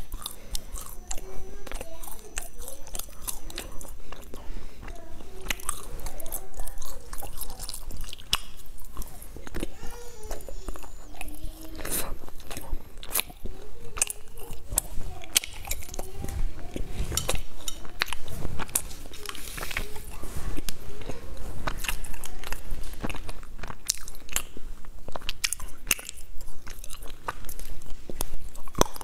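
Close-up eating sounds: sharp crisp crunches of bites and chewing into chocolate-coated snacks, repeated many times.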